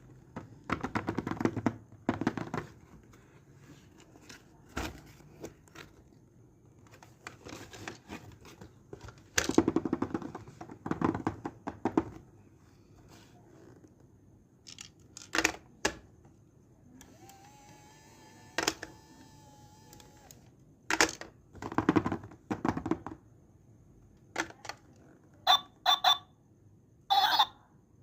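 Packaging being handled and opened: bursts of crinkling, rustling and tearing with sharp clicks and taps. About two thirds of the way through, a steady pitched tone is held for roughly three seconds, and a few short chirp-like tones follow near the end.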